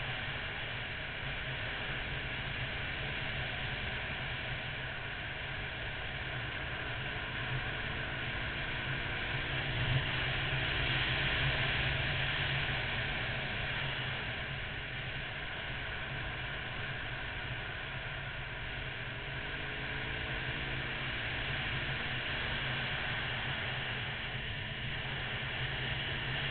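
Steady wind rush over the microphone of a camera on a Honda VFR800 motorcycle, with the bike's V4 engine running underneath at a cruising pace.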